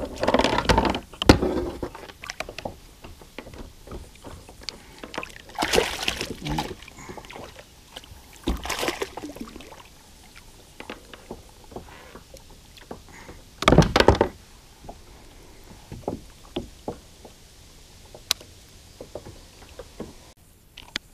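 Hooked flathead thrashing at the surface beside a plastic kayak: irregular splashes and thunks, the loudest about 14 seconds in.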